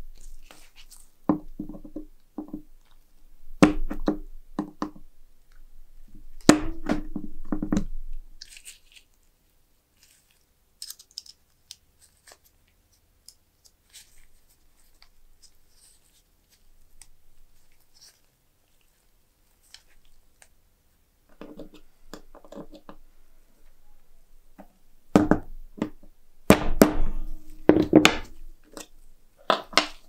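Groups of short knocks and clicks from small objects being handled. They come in bunches a second or two long, with a quiet stretch of about twelve seconds in the middle.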